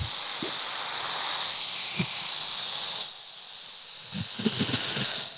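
Steady high-pitched hiss coming through a participant's unmuted microphone on a video call, a little weaker from about halfway through, with a few faint low murmurs beneath it.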